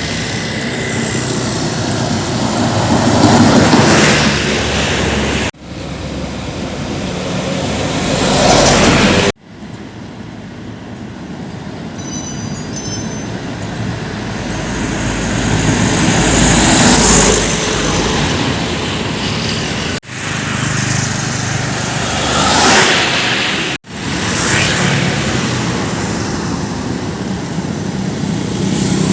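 Heavy trucks driving past one after another, each engine growing louder as it nears and then fading. The sound breaks off abruptly four times, as short recordings of different passing trucks follow one another.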